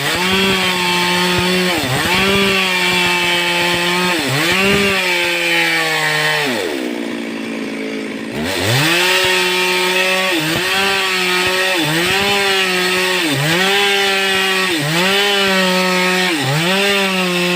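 Two-stroke Stihl chainsaw running at high revs, cutting through teak wood. Its engine note dips and recovers about every second and a half as the chain loads in the cut. About six seconds in, it eases off to a lower, softer note for two seconds, then revs back up.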